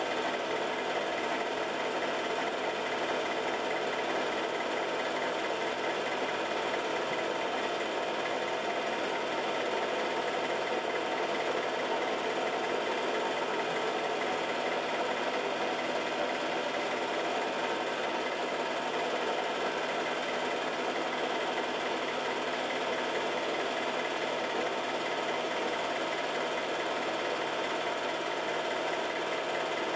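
Film projector running steadily: an even mechanical whir carrying several steady tones.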